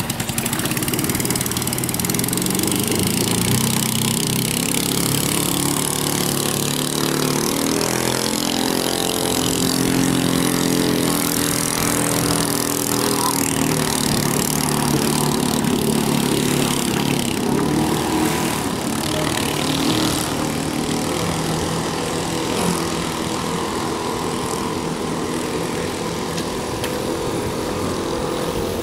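A 6.5 hp clone engine, a single-cylinder four-stroke, running hard on a mini power boat, its pitch rising and falling as the throttle changes, over a hiss of water and spray.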